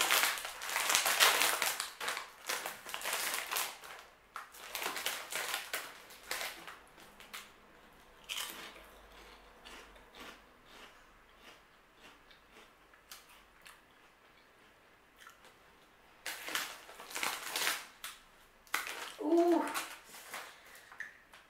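A crinkly plastic-foil snack bag of puffed rice snacks torn open and rustled, followed by quieter crunching as a snack is chewed. About sixteen seconds in the bag rustles again, and a short vocal sound comes near the end.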